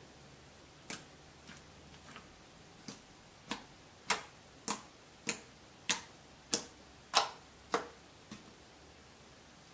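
Slime being pressed and poked, making a run of sharp clicking pops about every 0.6 seconds. The pops grow louder toward the middle and fade near the end.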